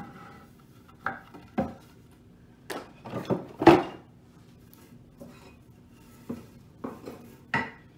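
Irregular knocks and clatter of wooden boards and a hand tool being moved and set down on a wooden workbench, about eight separate knocks with the loudest near the middle.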